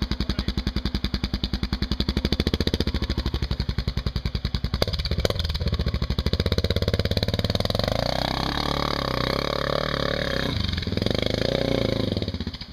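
Large single-cylinder dual-sport motorcycle engine thumping at low revs, then revved in a long rising pull about six seconds in and blipped up and down twice near the end.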